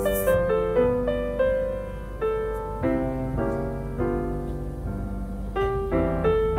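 Background piano music: a gentle melody of single notes and chords, each struck and then fading.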